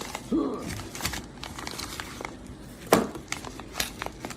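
Packaging crinkling and tearing as a parcel is opened by hand, with scattered sharp clicks and a louder snap about three seconds in.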